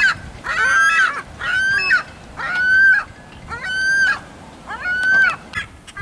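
Ring-billed gull squawking over and over: a series of harsh, pitched calls about one a second, each rising and dropping at its ends.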